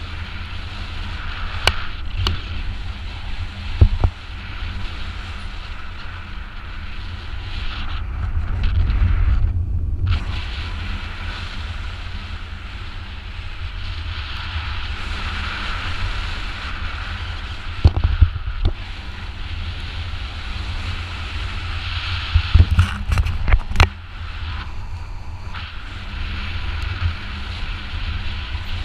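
Wind buffeting the microphone of a paraglider pilot's GoPro in flight: a steady low rumble with a rushing hiss, broken by a few sharp knocks.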